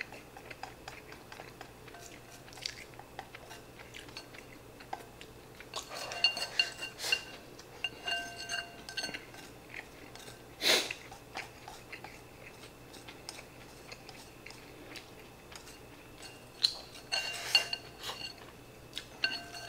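Wooden chopsticks scraping and clicking against a ceramic rice bowl as rice is scooped out of it, with chewing in between. The bowl rings briefly at the clicks, which come in clusters about a third of the way in and again near the end, with one sharper knock about halfway through.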